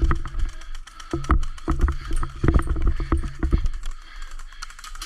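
Airsoft electric guns firing in several short bursts of rapid clicks with a low motor hum, the last and longest burst ending about three and a half seconds in.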